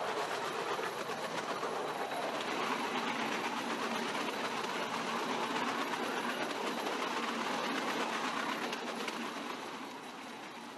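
Rail vehicle running along the track at speed: a steady noise of wheels on the rails, dropping in level near the end.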